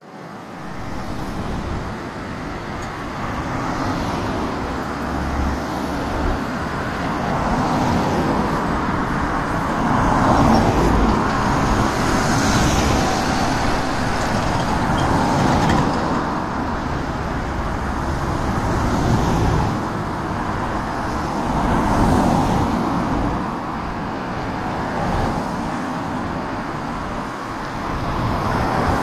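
Road traffic noise: a continuous rush that swells and eases every few seconds as vehicles pass.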